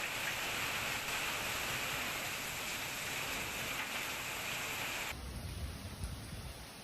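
Heavy storm rain pouring steadily. About five seconds in, the sound cuts abruptly to a quieter stretch of rain with a low rumble.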